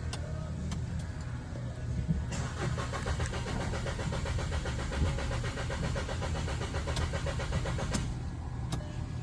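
Volkswagen engine cranking on the starter for about six seconds without catching, starting about two seconds in, over a steady low hum: a crank-no-start, with no power reaching the fuel pump.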